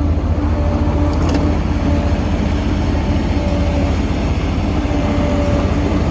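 Diesel engine of a John Deere CT332 compact track loader running steadily, with a faint intermittent higher whine over the low drone.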